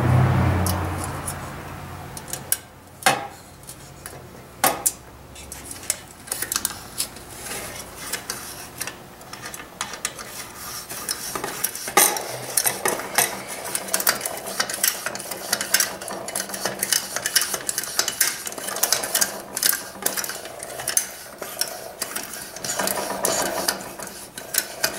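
Air-pump plunger on a Coleman camp-stove fuel tank being worked in and out by hand: irregular metallic clicks and scraping, with a short rush of noise at the start that fades within two seconds.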